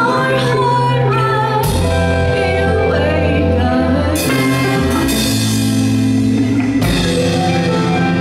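Live rock band playing electric guitar, bass guitar, keyboard and drums, with a woman singing. Cymbal crashes come about two, four and seven seconds in.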